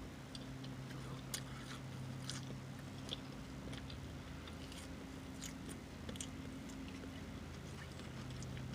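Faint chewing and lip-smacking of a person eating a fried chicken sandwich: scattered small wet mouth clicks, over a low steady hum.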